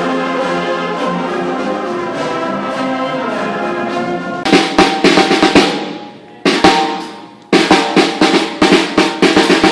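Live school band playing: sustained brass and wind chords, then about four and a half seconds in, drums take over with fast snare and kit hits, dying away briefly twice before starting again.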